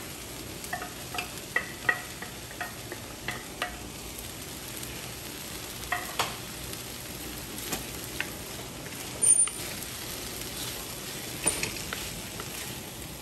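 Cooked rice frying in oil in a hot non-stick wok with a steady sizzle. A wooden spatula scrapes and taps against the pan here and there, with one louder knock about nine seconds in.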